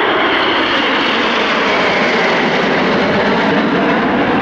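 Aircraft engine noise from a display aircraft flying past, loud and steady.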